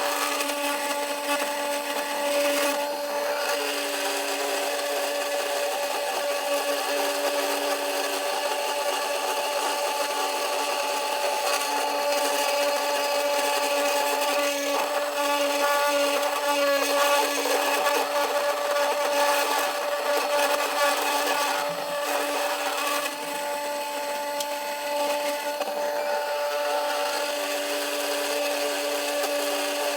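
CNC 3018 Pro desktop router milling aluminium plate: the spindle motor runs with a steady whine while the end mill cuts, adding a rough, uneven grinding chatter that rises and falls a little.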